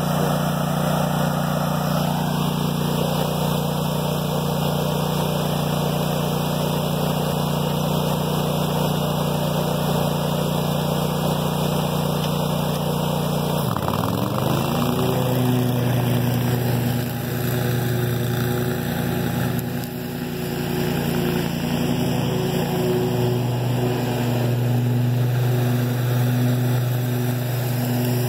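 Scag Tiger Cat II zero-turn mower's engine running steadily. About 14 seconds in, the engine note briefly dips, then rises and holds at a higher pitch.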